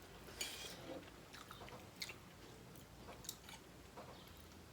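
Faint chewing and eating sounds, with a scattering of small clicks and crunches from the mouth.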